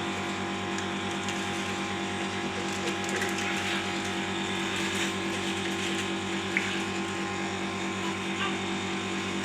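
A steady machine hum with a fast, even rattle running through it, level throughout.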